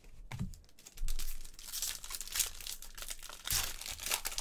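A trading-card pack wrapper being torn open and crinkled by hand. The rustling swells twice, about two seconds in and again near the end.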